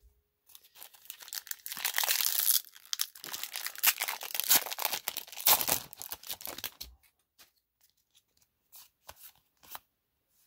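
Foil wrapper of a Magic: The Gathering collector booster pack being torn open and crinkled, a dense crinkling that runs for about six seconds and is loudest in the middle. After it, a few soft clicks as the cards are handled.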